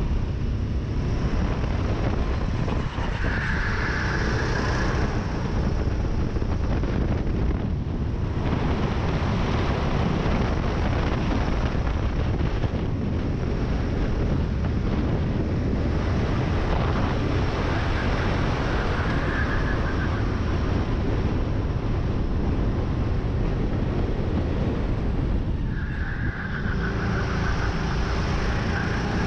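Sodi RT8 rental kart's four-stroke engine running hard under racing load, heard from a camera mounted on the kart, with wind rushing over the microphone. The engine eases off briefly twice, as if lifting for corners.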